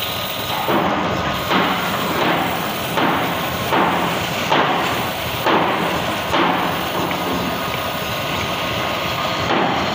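Woodworking in a workshop: a regular series of short scraping strokes, about one every 0.8 s, that stops about two thirds of the way through, over a steady machine hum.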